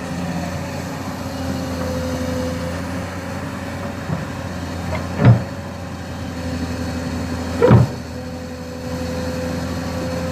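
Excavator diesel engine running steadily, with two loud knocks, one about five seconds in and another about two and a half seconds later.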